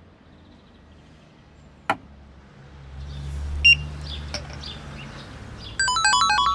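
Sound effects: a sharp click about two seconds in, a low rumble that swells and fades, and a short high beep. Near the end a rapid run of bright electronic beeps at several pitches starts, like a quick jingle.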